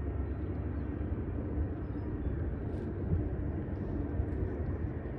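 Wind blowing across the microphone, a steady low rumble as a storm eases off.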